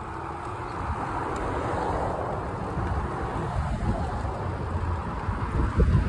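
Road traffic noise from cars passing on the road, a steady rush of tyre and engine noise that swells about a second or two in. Wind rumbles on the microphone throughout and grows stronger near the end.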